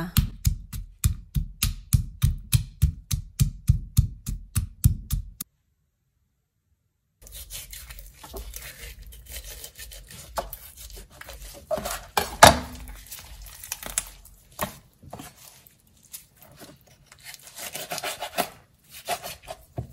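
A stone pestle pounding candlenuts in a stone mortar, an even run of sharp knocks about four a second that stops after about five seconds. After a short silence, a knife cuts through a whole raw chicken on a plastic cutting board: irregular scraping and scattered knocks, the loudest about twelve seconds in.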